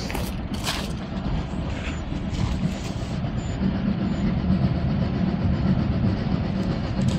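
Saxon IV K narrow-gauge steam locomotive and its train approaching along the track, a low steady rumble growing louder.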